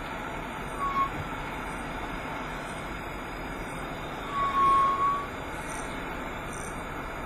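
Vehicle creeping to a stop, heard from inside the cab as a steady running noise, with a brief high-pitched squeal about a second in and a longer, louder squeal around the middle as the speed drops toward zero.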